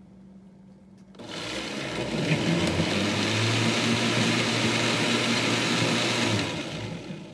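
Countertop blender switched on about a second in, running steadily with a motor hum as it mixes a full glass jug of liquid pudding batter, then switched off and winding down near the end.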